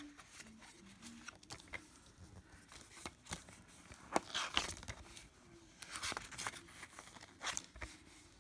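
Faint handling noise from an open plastic DVD case and its paper leaflet insert: light paper rustling with scattered small clicks and taps, a few of them sharper about three to four and a half seconds in.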